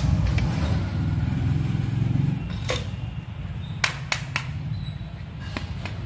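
A low engine rumble, like a passing motor vehicle, that fades out about two and a half seconds in, followed by a few sharp plastic clicks as the car vacuum's pleated filter is handled and fitted.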